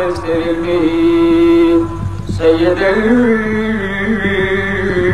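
A man's voice chanting a zakir's sung recitation in two long, drawn-out phrases, the first held on one note and the second rising and falling, with a short break about two seconds in.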